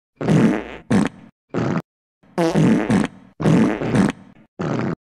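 A string of about six cartoon fart sound effects, short separate blasts with brief gaps between them.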